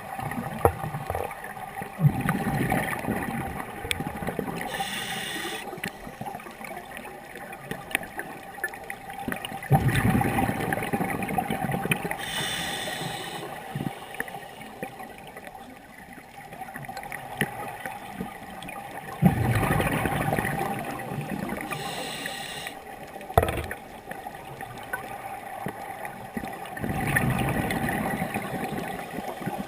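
Scuba diver breathing through a regulator underwater. Each breath is a short hiss of inhalation followed by a longer gurgling rush of exhaled bubbles, repeating about every eight to nine seconds over a faint steady hum.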